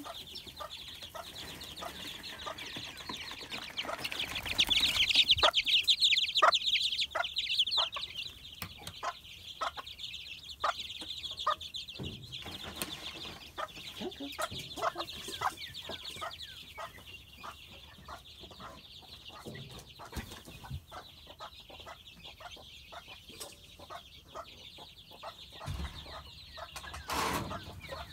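A brood of young chicks peeping together, loudest a few seconds in, with a hen clucking in short repeated notes.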